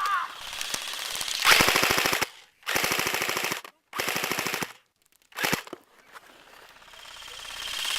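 Airsoft automatic electric rifle firing on full auto in rapid bursts: three bursts of about a second each, then one short burst.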